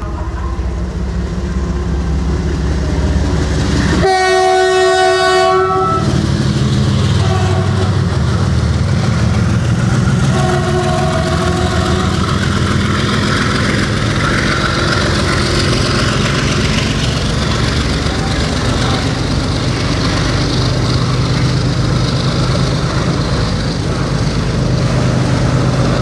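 WDG4G diesel freight locomotive sounding a loud horn blast of about two seconds, followed a few seconds later by shorter, fainter horn notes. Under it the engine throbs as it accelerates its train of tank wagons, and the wagons' wheels clatter over the rail joints as they roll past.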